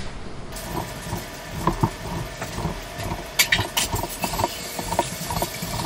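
A drinking glass pressed again and again through rolled dough onto a wooden cutting board, giving a scatter of light taps and knocks, over a steady mechanical hum.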